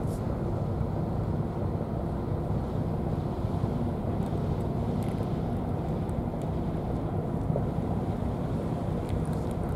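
Steady low rumble, with a few faint crisp ticks of cats crunching dry food.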